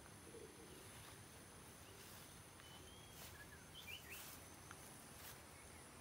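Faint outdoor ambience: a steady high-pitched insect drone, with a few short bird chirps about three to four seconds in.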